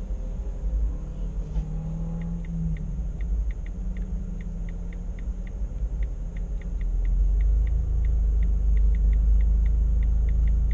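Car idling at a standstill, heard from inside the cabin: a steady low engine rumble that grows louder about seven seconds in, with a run of light ticks, two or three a second, over it.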